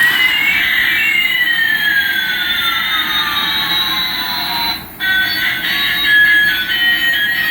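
Electronic sound effect: two gliding tones cross, one rising and one falling, over about five seconds. Then, after a brief drop, a simple beeping electronic melody starts.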